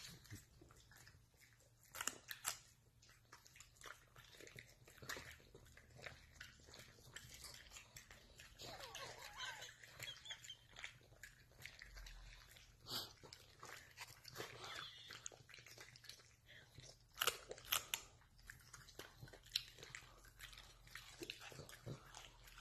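Small dogs crunching and chewing treats: a scatter of short, irregular crunches and clicks, the sharpest about two seconds in, around thirteen seconds and in a quick cluster near seventeen to eighteen seconds.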